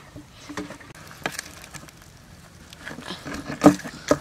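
Handling noise from lashing a bamboo pole to a metal paint bucket with rope: the rope scraping as it is pulled tight, and a few knocks, the loudest near the end.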